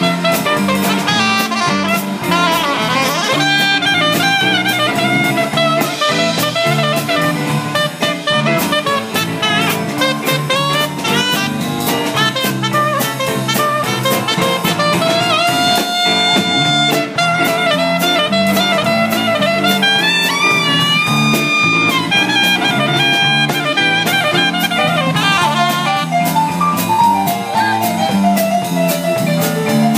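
Small jazz band playing a swing tune: a soprano saxophone plays the lead over drum kit, bass and piano.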